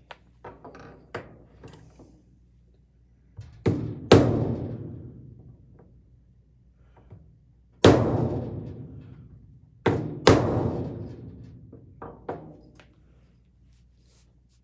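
Heavy hammer blows on a workpiece. Seven or so hard strikes come in twos and singles, each with a booming ring that fades over a second or two, after a few lighter taps at the start.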